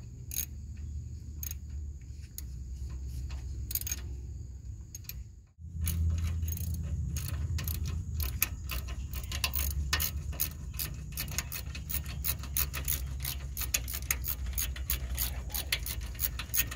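Socket ratchet clicking as a brake caliper mounting bolt is run in: scattered clicks at first, then fast, steady clicking from about halfway on, over a low rumble.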